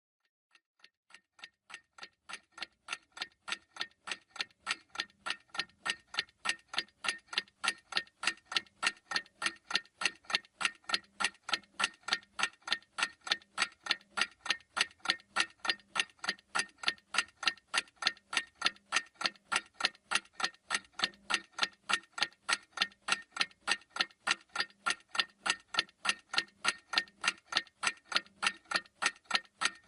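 Mechanical clock ticking steadily, about two even ticks a second, fading in over the first few seconds.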